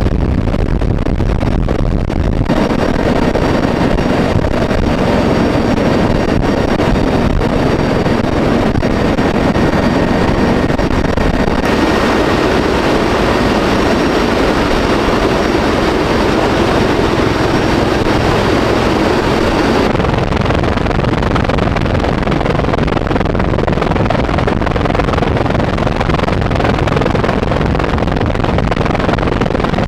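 Loud, steady aircraft engine noise with a faint high whine. It changes abruptly about 2.5, 12 and 20 seconds in.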